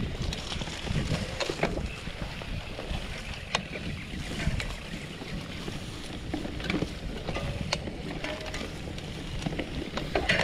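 Polygon Bend R2 gravel bike being ridden through tall grass on an overgrown track. Grass swishes against the bike and there are scattered rattles and knocks from the bike over rough ground, with wind noise on the microphone.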